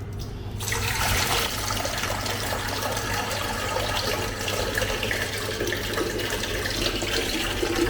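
Water running steadily from a kitchen tap, turned on about half a second in.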